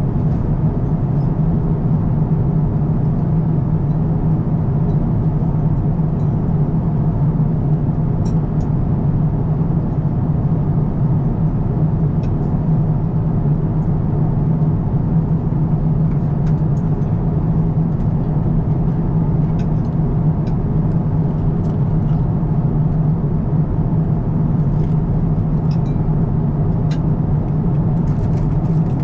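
Steady low drone of airliner cabin noise inside an Airbus A350-1000, with a few faint ticks scattered through it.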